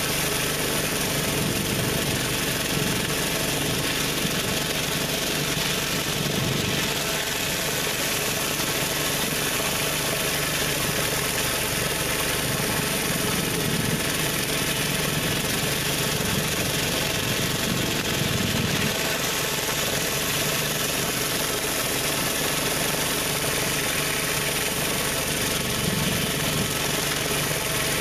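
A pressure washer's engine runs steadily under load, with the even hiss of high-pressure water spraying from a Mi-T-M 20-inch surface cleaner as it is pushed over concrete.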